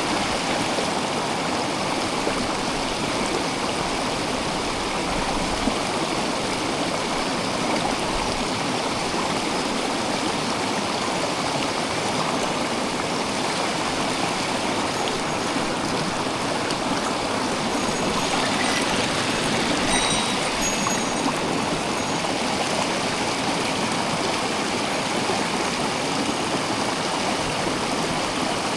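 Mountain stream rushing steadily over rocks, an even water noise with no pauses.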